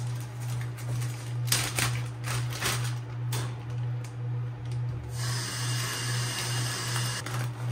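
Plastic bag crinkling as it is handled at a stainless steel sink, then the tap running into the bag for about two seconds from about five seconds in. A steady low hum, pulsing slightly, runs underneath.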